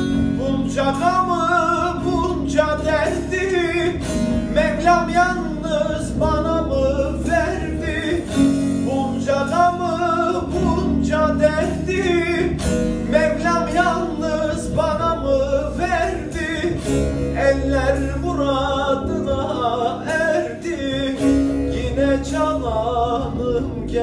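A man singing a slow Turkish folk song in a wavering line, accompanied by a plucked long-necked bağlama (saz) and an electronic keyboard holding sustained low notes.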